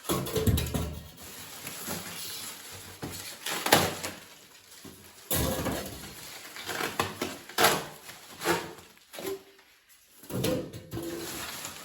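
Fridge packaging being pulled open and handled: irregular rustles, scrapes and sharp knocks, with a few short squeaks near the end.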